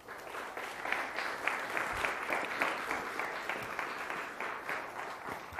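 Audience applauding: a crowd's clapping that starts at once and dies away near the end.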